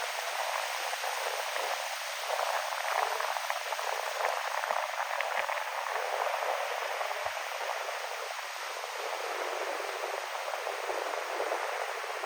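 Ocean waves washing in on a windy sea: a continuous rushing of surf that swells a little now and then.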